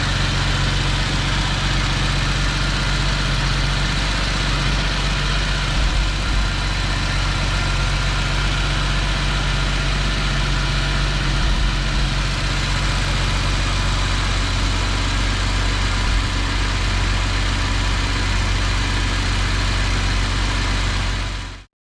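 Jaguar XJS V12 engine idling steadily after its overhaul, with an even low hum. The sound cuts off suddenly near the end.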